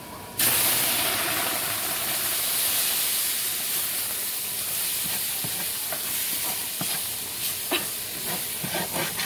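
Chile sauce poured into a hot pot of browned pumpkin-seed paste, setting off a loud sizzle that starts suddenly about half a second in and slowly dies down. A few light knocks come near the end.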